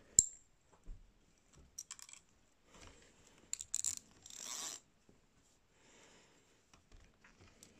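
Quiet clicks and short scratchy rustles of a fixed-spool fishing reel and its line being handled by hand. A sharp click comes right at the start, more small clicks follow, and a brief rustle comes a little after halfway.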